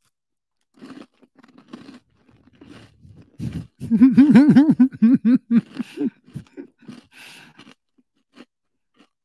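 A man chewing a dry Kodiak Cakes bar close to the microphone: irregular crunching and chewing noises, with a loud wavering hum of his voice for about two seconds in the middle.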